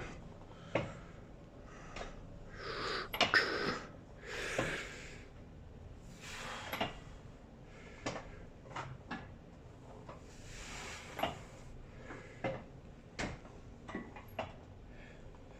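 Strained breathing during warm-up reps on a gym leg machine: several sharp, hissy breaths, with scattered clicks and knocks from the machine's moving parts.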